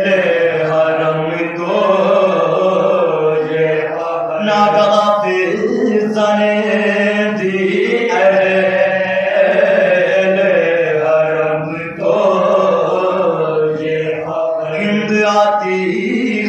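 A group of men chanting an Urdu Shia mourning lament without instruments: a lead voice with his companions singing along in long, drawn-out notes, over a steady low held note.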